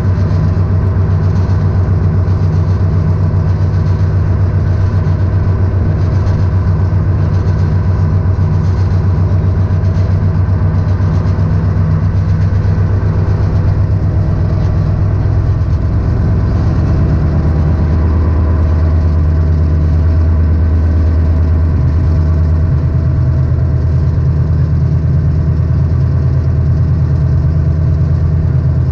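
Diesel engine of an SNCF X3800 'Picasso' railcar running steadily, heard from inside the driver's cab. A little past halfway its deep hum drops in pitch as the revs fall, then holds at the lower note.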